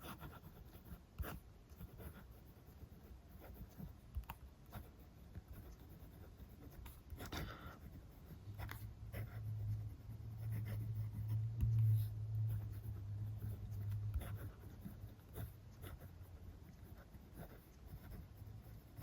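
Montblanc Meisterstück 149 fountain pen with an 18-karat gold medium nib writing on paper: faint, light scratching of the nib in short strokes. A low steady hum comes in partway through and fades out a few seconds later.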